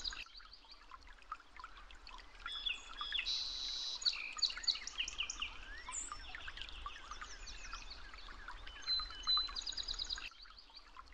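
Several birds chirping and trilling at once, with quick repeated note series and short whistles overlapping, over a faint low hum. The chorus thins and drops in level about ten seconds in.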